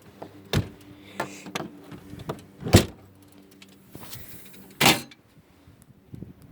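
A series of knocks and thumps: several light ones, a sharp loud one about three seconds in and a longer one near five seconds, over a faint steady hum.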